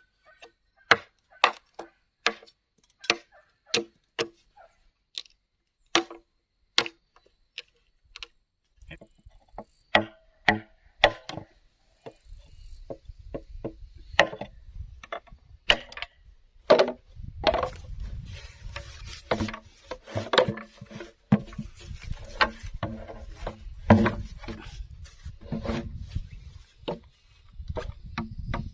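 Repeated sharp blows of a hand tool on bamboo or wood, spaced about a second apart at first. From about twelve seconds in they come faster and busier, over a low rumbling noise.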